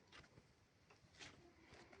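Faint, irregular sticky clicks and crackles of soft super clay being pressed and pulled by hand.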